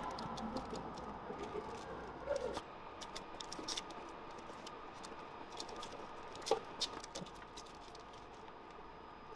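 Blue masking tape being peeled off a car's freshly spray-painted rear panel and bunched up: a scatter of small crackles and ticks, a little louder about 2.5 s and 6.5 s in, over a faint steady hum.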